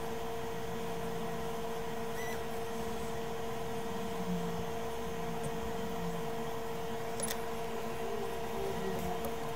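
Steady hum of electronics bench equipment, a fan-like whir with a constant tone, with a faint tick or two from small tools.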